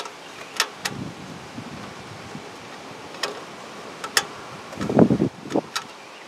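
Scattered small clicks and taps as a screw and a black cover piece are handled and fitted onto a pellet smoker's control board housing, with low rumbles of wind on the microphone, the louder one about five seconds in.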